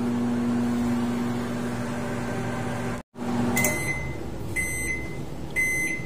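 Microwave oven running with a steady low hum. After a brief dropout about halfway, the hum stops and three short beeps about a second apart signal the end of the cycle. This oven runs but does not heat the food.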